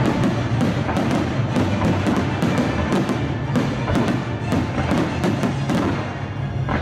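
Orchestral film music played loudly over a fireworks display, mixed with many sharp bangs of firework shells bursting.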